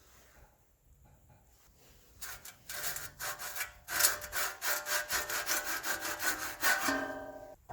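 Hand saw cutting wood: rapid back-and-forth strokes starting about two seconds in. It ends with a brief ringing tone just before it stops.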